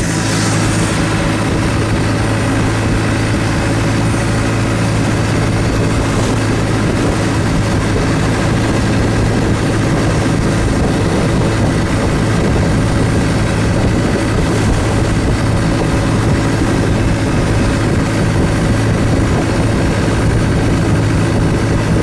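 Thai longtail boat's engine running steadily under way, a loud even drone with a strong low hum that does not change.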